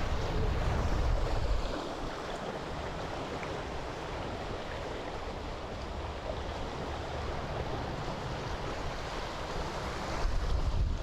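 Steady rushing noise of river water and rain in a forest, with wind buffeting the microphone as a low rumble in the first second and a half and again near the end.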